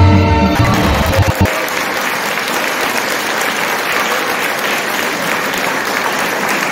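Live folk dance music ends in the first second, then an audience applauds steadily.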